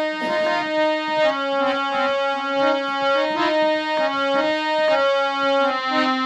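Harmonium playing an instrumental bhajan melody between sung verses: reedy held notes stepping from one pitch to the next.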